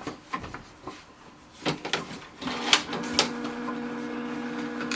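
Canon PIXMA TR4520 inkjet printer: a few clicks and knocks of plastic parts being handled, then about two and a half seconds in its internal mechanism starts a steady motor hum that keeps going. This happens just after the ink cartridges have been installed.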